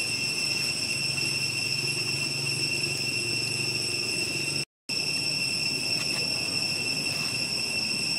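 Steady, shrill drone of insects, with a low hum beneath it; the sound cuts out completely for a moment a little past halfway.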